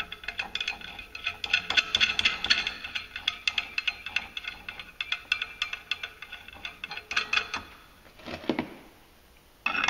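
Clutch compression tool being cranked down onto a UTV's secondary clutch spring: a quick, even run of metallic clicks with a light ring, stopping about three-quarters of the way through.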